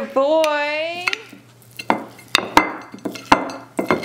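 A short high voice at the start, then a metal table knife clicking and scraping against a ceramic plate as it cuts through a soft cake, with a handful of sharp clinks in the second half.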